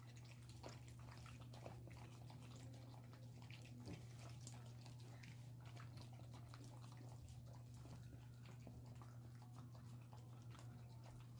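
Faint wet clicks and smacks of a dog eating vegetables and rice, chewing and licking at its food, over a steady low hum.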